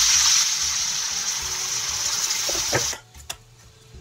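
Water poured from a kettle into a hot wok of pork pieces: a steady rush of water that cuts off suddenly about three seconds in, followed by a couple of light clicks.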